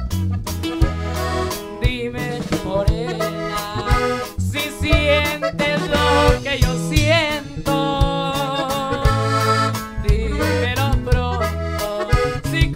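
Norteño corrido band music: an accordion plays the lead melody with quick warbling runs, over bajo sexto, low bass notes and a steady drum beat.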